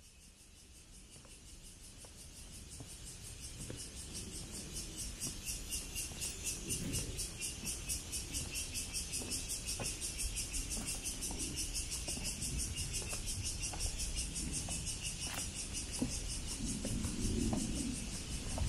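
Cicadas in the trees make a steady, high buzzing chorus that pulses rapidly and evenly. It swells up over the first few seconds.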